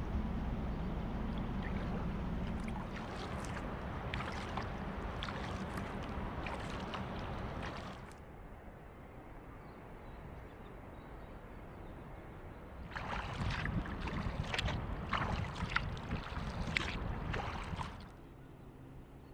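Kayak paddle strokes on calm water: blades dipping and dripping in a quick, uneven run of small splashes, with a quieter spell in the middle where only soft water lapping is heard before the splashing starts again.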